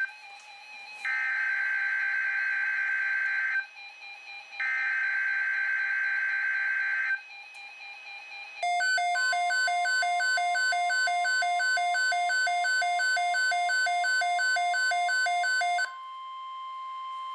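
Emergency Alert System SAME header: bursts of warbling data tones, each a couple of seconds long, with short gaps between them. These are followed by a rapid pulsing alert beep at about three beeps a second over a steady high tone, which runs on by itself for about two seconds. This is the alert signal that announces a weather-radio warning message.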